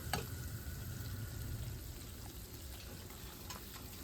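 Besan (gram flour) roasting in hot ghee in a pan: a steady low sizzle, with a light click just after the start and another near the end.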